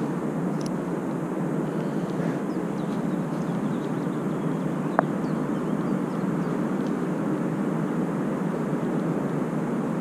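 Steady wind noise on the microphone by an open pond, with faint short high chirps and one sharp click about halfway through.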